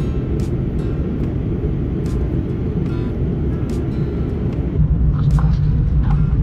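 Jet airliner cabin noise in flight: a steady low rumble. About five seconds in it becomes a louder, deeper hum.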